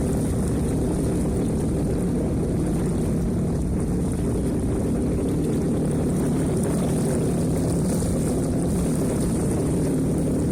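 Jet ski engine running steadily while underway on the river.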